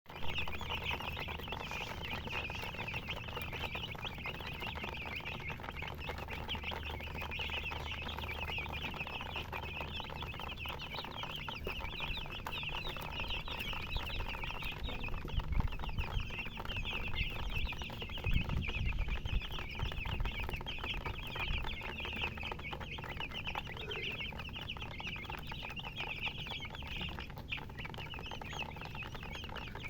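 Baby chicks peeping continuously, a dense chorus of many short high chirps. Some low rumbling comes in around the middle.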